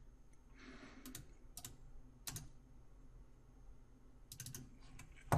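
Faint clicking of a computer mouse and keyboard: a few separate clicks over the first couple of seconds, then a quick run of clicks about four seconds in.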